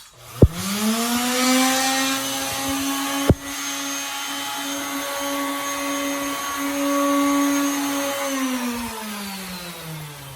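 Electric power sander's motor switched on and spinning up to speed, running steadily with a whine, then switched off about eight seconds in and winding down. Two sharp clicks, one as it starts and another about three seconds in.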